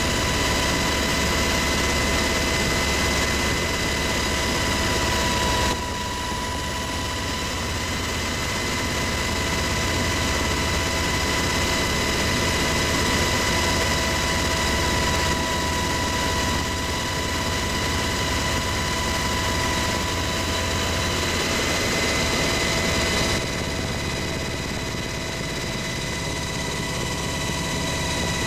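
UH-60 Black Hawk helicopter cabin noise in flight: a steady rotor and turbine drone with a constant high whine from the main transmission. The level drops slightly twice, about six seconds in and again near the end.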